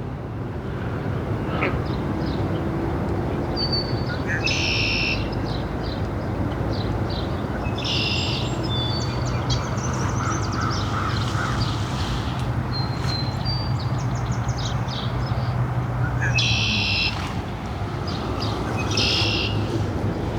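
Birds calling outdoors: four short, harsh calls spaced through the stretch, with brief high chirps between them. Underneath runs a steady outdoor background noise and a low hum that fades about two thirds of the way in.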